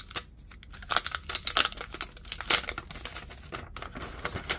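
Thin plastic wrap crinkling and tearing in the hands as a phone is unwrapped, in irregular crackly bursts that are busiest in the middle.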